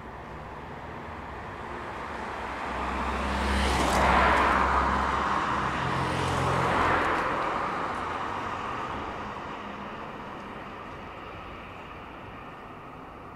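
Cars passing along a street, tyre and engine noise swelling to a peak about four seconds in and again about seven seconds in, then slowly fading away.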